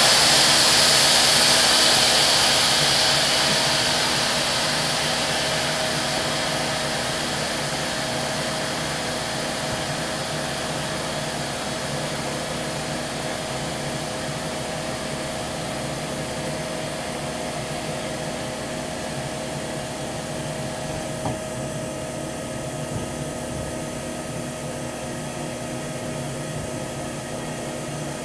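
Steam locomotive hissing: a strong rush of escaping steam dies away over the first several seconds into a lower, steady hiss with a faint whine running through it.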